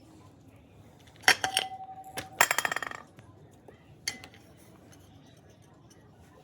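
Small metal parts clinking together: a few ringing clinks, then a quick rattle of clicks that dies away like a small metal piece dropped and bouncing on a hard surface, and one more clink near the end.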